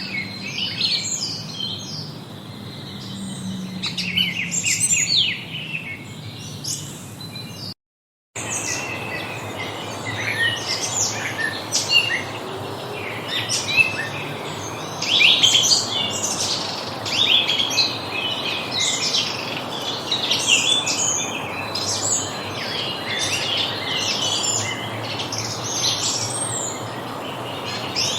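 Several songbirds singing together in a forest chorus, with overlapping chirps, trills and whistles. About eight seconds in, the sound breaks off for a moment, then comes back as a denser chorus over a steady hiss.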